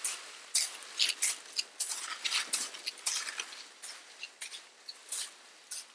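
Footsteps crunching in snow with a plastic sled sliding behind: an irregular series of crisp crunches, a few to the second, that grows fainter as the walker moves away.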